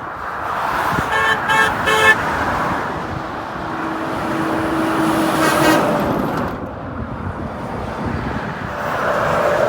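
Vehicle horns over steady road noise: three quick toots about a second in, then a longer, lower horn blast lasting about two seconds.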